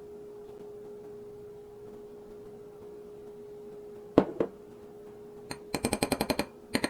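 A steady hum, then a sharp knock about four seconds in and a quick run of ringing clicks near the end, from sauce bottles and a spoon being handled in a kitchen.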